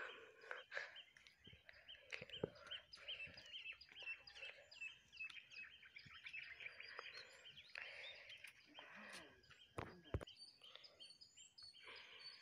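Faint outdoor ambience of small birds chirping repeatedly in scrub woodland, with a few short knocks, the clearest about ten seconds in.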